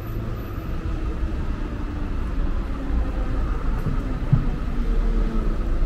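City street traffic going by: a steady, deep rumble of passing vehicles.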